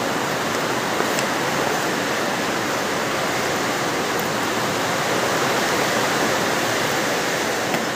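Heavy rain falling steadily, a loud even hiss with no letup.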